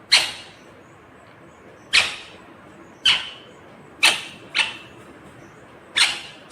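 Indian ringneck parrot giving six short, sharp, high-pitched calls, irregularly spaced about a second apart, two of them in quick succession near the middle.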